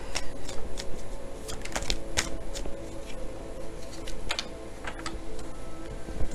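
Tarot cards being handled: irregular sharp clicks and snaps as cards are flicked, tapped and laid down on the table.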